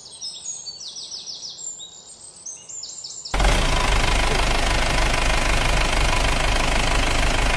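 Birds chirping in quick repeated calls for about three seconds. Then a loud, steady vehicle engine running sound cuts in abruptly, with a deep hum under a noisy rumble.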